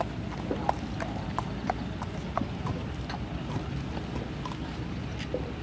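Hoofbeats of a Dutch Warmblood gelding moving over sand arena footing, sharp ticks about three a second.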